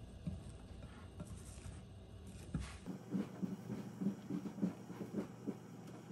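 A quick, irregular run of soft taps and rustles, starting about halfway through, after a low rumble.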